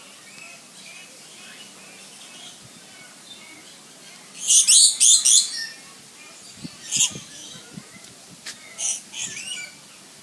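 Small parrots screeching: a loud burst of harsh calls about four seconds in, a few shorter squawks later, and lighter chirping throughout.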